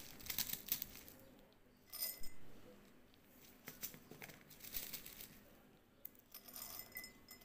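Dry whole cloves scooped by hand from a plastic basket and dropped into a glass jar: light rattling and clinking against the glass in several short spells.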